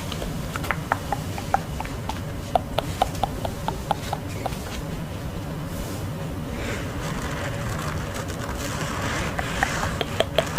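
Sleep mask handled close to the microphone while its eye cups are being adjusted: a quick run of light clicks, then soft fabric rustling, then a few more clicks near the end.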